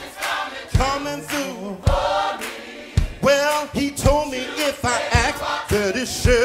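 Gospel song: a choir singing over a steady drum beat of about one hit a second.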